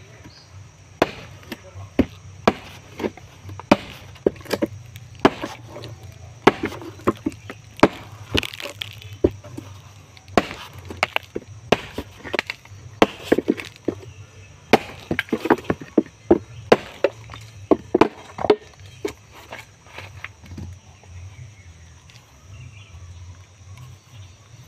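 A celurit sickle blade chopping repeatedly into a thick dry bamboo pole, a sharp crack at each blow, about two blows a second, stopping about twenty seconds in.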